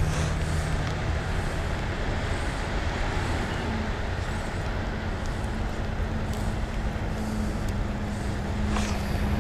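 An engine running steadily with a low rumble and a steady hum; a second hum appears about three and a half seconds in and climbs slightly in pitch.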